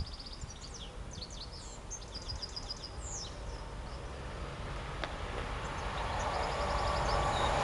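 Small birds chirping and trilling in short repeated phrases over outdoor ambience. Meanwhile the low rumble of an approaching Class 66 diesel freight locomotive grows steadily louder through the second half.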